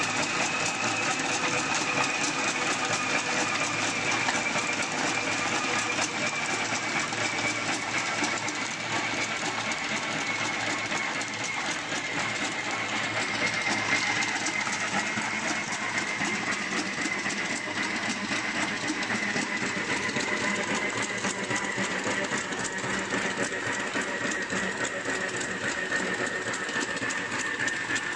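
Dogmills Quinlent edition slatmill turning under a running Staffordshire Bull Terrier: a fast, continuous clatter of slats. Over it runs a high whine that slowly sinks in pitch.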